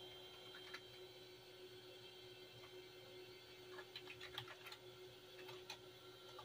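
Faint keystrokes on a computer keyboard: a few scattered clicks, then a quicker run of them about four seconds in, over a steady electrical hum.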